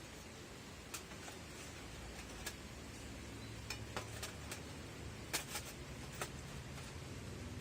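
Scattered light metallic clinks and taps as the steel parts of a folding wood stove are handled and fitted together. A low steady hum comes up from about three seconds in.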